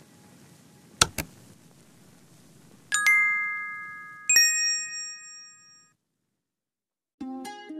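Two quick mouse-click sound effects about a second in, then two bright bell-notification dings that ring out and fade. After a short silence, plucked-string music starts near the end.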